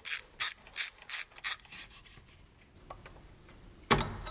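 A ratchet wrench clicking in short, quick strokes, about five in the first two seconds, then a single loud metallic clack near the end.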